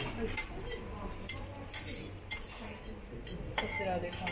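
Two steel teppanyaki spatulas clinking and scraping against the steel griddle while pressing and shaping a mound of fried rice: a few sharp metallic clicks spaced irregularly, about a second apart.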